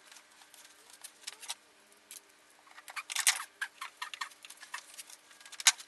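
Double-sided tape being handled and peeled by hand: scattered small clicks and crackles, with a louder crackling about three seconds in and a sharp click near the end.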